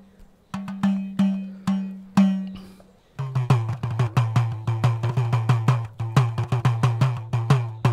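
Percussion music on a tuned drum: ringing strokes about half a second apart, then from about three seconds in a faster run of lower-pitched strokes, about four a second.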